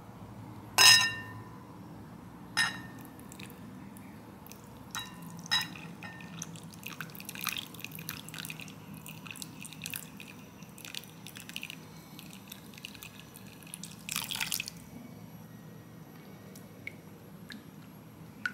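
Silicone spatula knocking against a glass mixing bowl, the glass ringing briefly with each knock; the loudest knock comes about a second in. Then milk is poured into the melted chocolate with light splashing and dripping, and the spatula stirs through the liquid, with a short louder splash or scrape near the end.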